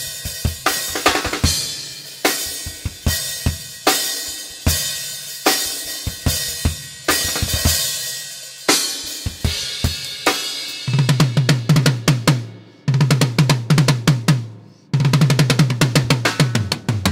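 Solo playing on a five-piece Gretsch drum kit with Zildjian cymbals: hits with ringing cymbals, then three bursts of very fast strokes on a low drum, with short breaks between them, before it stops.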